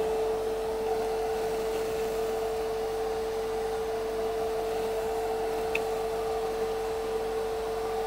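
Industrial wet-and-dry vacuum cleaner running at full power: a steady motor hum over an even rush of air.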